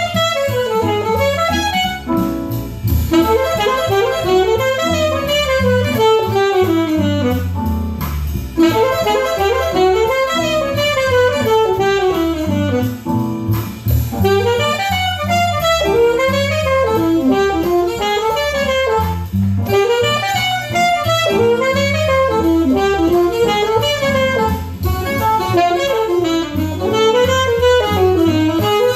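Alto saxophone playing fast jazz lines in continuous phrases that run up and down the horn, with only brief breaths between them.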